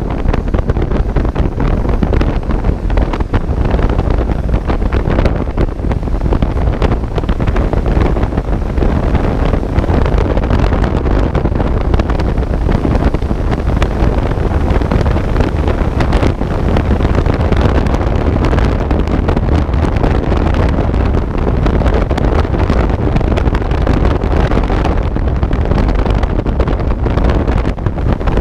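Loud wind noise buffeting the microphone of a camera on a moving motorcycle at road speed: a constant rushing roar, heaviest in the low end, with fast flutter throughout.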